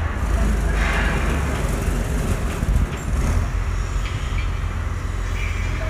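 Telescopic truck crane's diesel engine running steadily under load with a low, constant rumble as it hoists a heavy press machine.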